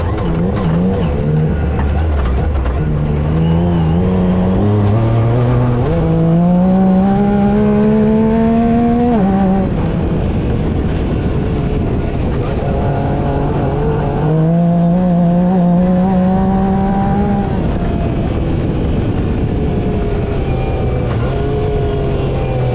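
Yamaha YXZ side-by-side's three-cylinder engine under way on a trail, its pitch repeatedly climbing under throttle and dropping off. Two long climbs end about 9 s and 17 s in, the first dropping suddenly.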